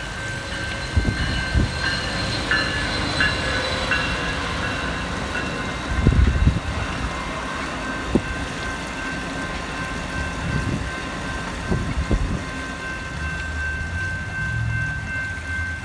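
Railroad crossing bell ringing steadily while an Amtrak Pacific Surfliner passenger train rolls past, its wheels thudding over rail joints several times. A low engine drone comes in near the end.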